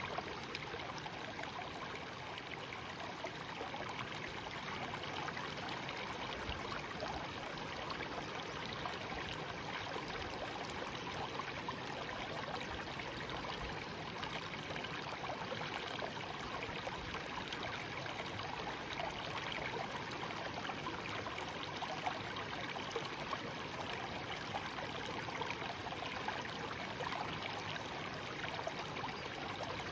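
A shallow stream babbling and trickling over stones: steady running water with small splashes.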